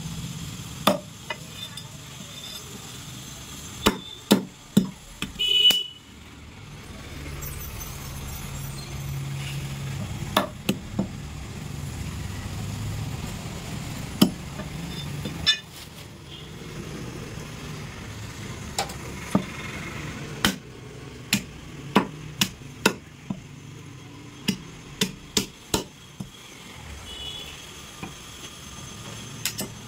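Butcher's cleaver chopping goat head and legs on a chopping block: sharp, irregular blows, sometimes two or three in quick succession.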